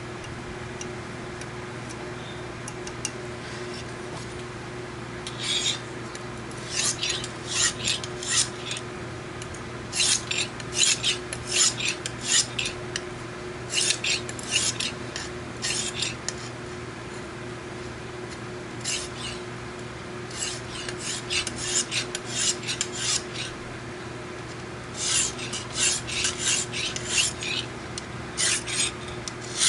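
Lansky guided sharpening kit's medium-grit synthetic hone stroked lightly along a folding knife's edge: runs of quick scraping strokes, several a second, with pauses of a few seconds between the runs. A steady low hum runs underneath.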